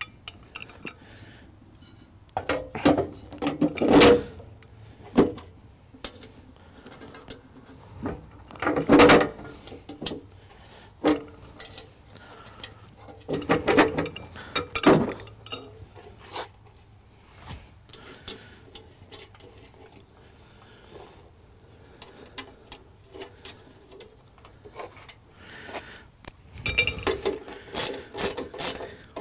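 Metal parts of a homemade leaf-vacuum shredder being handled and fitted back together: irregular clanks, knocks and scraping of the metal blade housing and its insert. The clatter comes in bunches, loudest a few seconds in, around the middle and near the end, with quieter handling between.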